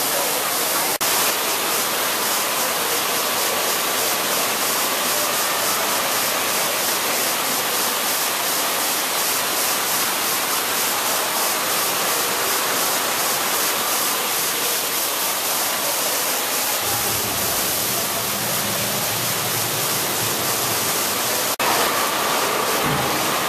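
Steady rushing of a waterfall, an even loud hiss of falling water, with a deeper rumble joining for a few seconds in the second half.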